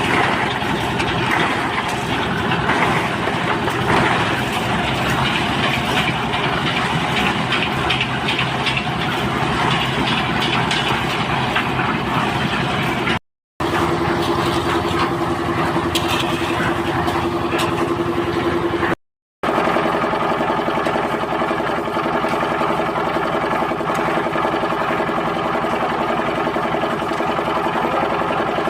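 An engine runs steadily throughout, from machinery at a concrete pour. A steady whine joins it for about five seconds in the middle, and the sound drops out briefly twice.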